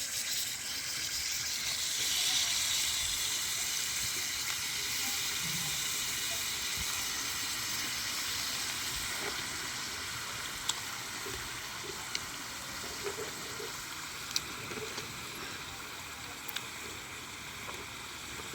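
Food for a mutton curry sizzling in hot oil in a pan: a steady hiss that slowly dies down, with a few sharp pops of spattering fat in the second half.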